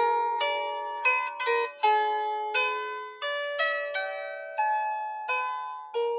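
Lyre harp being plucked: single ringing notes one after another, each starting sharply and fading slowly, forming a gentle melody.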